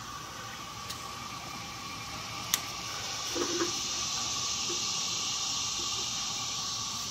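Handling noise from an EGR valve's metal body and solenoid housing being fitted back together: one sharp click about two and a half seconds in, then a few soft knocks. Under it runs a steady hiss with a faint constant whine, and the hiss grows louder about three seconds in.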